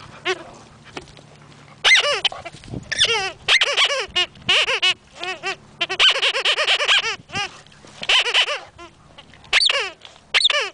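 Rubber squeaky chew toy squeaking in repeated bursts of quick, wavering squeaks, several runs over the last eight seconds.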